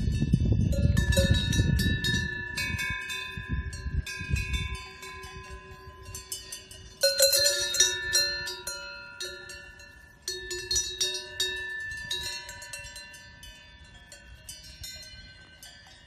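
Several cowbells clanking and ringing on grazing cows, many pitches overlapping, with louder clangs about seven and ten seconds in. A low rumble sits under the first few seconds.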